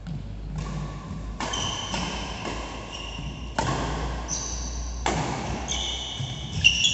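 Badminton rally: rackets strike the shuttlecock over and over, roughly every half second to second, with sneakers squeaking on the court between shots. The sharpest, loudest hit comes near the end, on an overhead smash.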